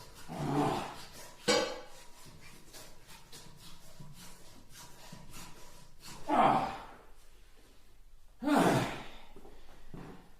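A person gasping and breathing hard, four loud, sharp gasps spread over several seconds, with faint rapid ticking in between.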